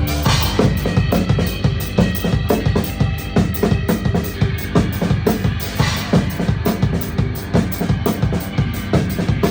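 Live band playing an instrumental passage with the drum kit to the fore: a busy, steady beat of kick and snare, with cymbal crashes about half a second in and again around six seconds in.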